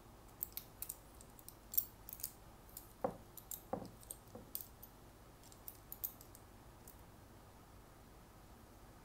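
Light metal and plastic clicks and taps as a Shimano SPD pedal with a clip-on platform adapter is handled and fitted, with two duller knocks about three seconds in; the clicking stops about six seconds in.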